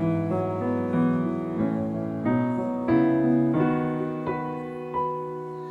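Keyboard playing soft sustained chords, a new chord or note struck about every second: an instrumental interlude between sung lines of a worship song.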